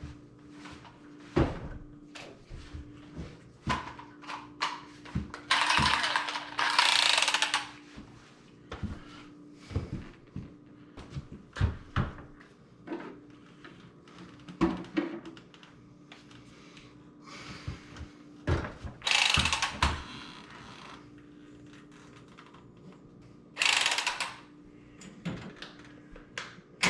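Irregular metallic clicks and knocks of tools or fittings being handled, broken by three short bursts of hissing noise, over a faint steady hum.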